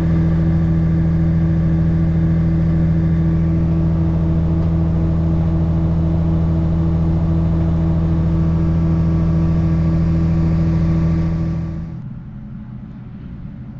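A farm tractor's engine runs steadily at high revs, with a constant drone heard from the cab. About twelve seconds in it gives way to a quieter, duller engine hum.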